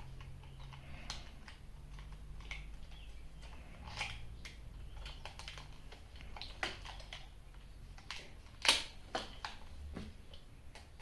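Scattered light clicks and taps of hands working the plastic battery compartment in a toy robot's foot, putting batteries in and fitting the cover back on, with one sharper, louder click a little past two-thirds of the way through.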